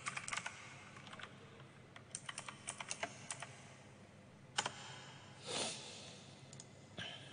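Faint clicking of typing on a computer keyboard, in irregular runs of keystrokes, with a brief soft rush of noise about five and a half seconds in.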